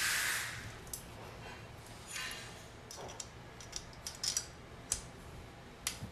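Light, scattered clicks and ticks of small steel hardware (torque plate, washer and acorn nut) being fitted by hand and threaded onto the axle of a geared front hub motor in a bicycle fork. There are about eight clicks, unevenly spaced. A hiss fades out in the first half second.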